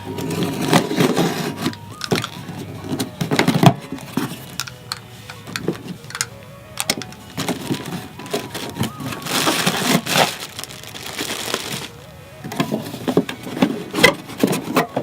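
Cardboard packaging of a pop filter being opened and handled: irregular rustling, scraping and knocks, with a longer stretch of sliding, scraping noise about nine seconds in.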